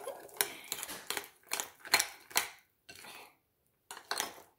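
A utensil clinking and scraping against a mixing bowl in quick, uneven strokes, about two a second, as cookie dough is stirred, with a short pause about three and a half seconds in.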